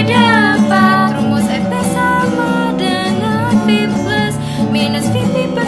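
A girl singing an Indonesian educational song whose lyrics recite the Doppler-effect formula ("sehingga didapat rumus fp sama dengan V plus..."), over instrumental backing.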